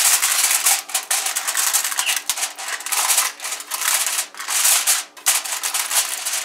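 Aluminium foil crinkling as hands press and crimp it around the rim of a round cake pan, in quick irregular rustling bursts with brief pauses.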